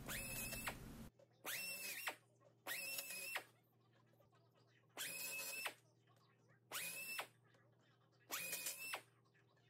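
Air drill run in six short bursts, each under a second: it spins up to a steady high whine and stops, final-drilling holes to size through clecoed aluminum bulkhead halves and attach bars.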